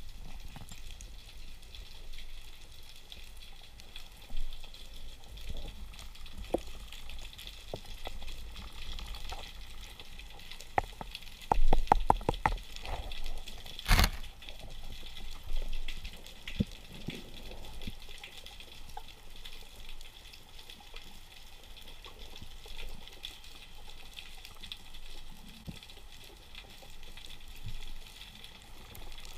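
Underwater ambience recorded by a camera in its housing: a steady, faint crackling hiss. About 11 seconds in there is a quick run of clicks, and about 14 seconds in one sharp knock.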